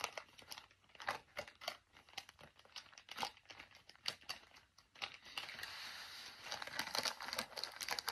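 Plastic poly mailer bag being torn open and crumpled by hand, with irregular crackling rips and crinkles. From about five seconds in, the crinkling becomes denser and more continuous as the plastic-wrapped package inside is handled.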